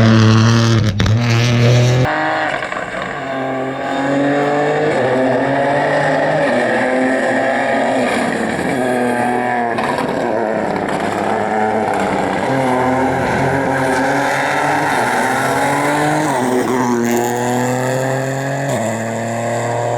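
Rally car engine at full throttle, its pitch climbing and then dropping again and again as it accelerates and changes gear. The sound changes abruptly about two seconds in.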